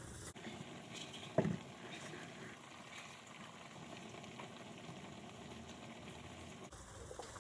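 Small knife slicing a bell pepper into thin strips by hand: faint crisp cuts and clicks, with one louder short knock about a second and a half in.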